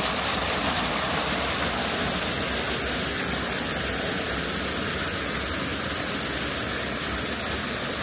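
Flowing water rushing steadily and loudly, an even unbroken rush with no separate splashes.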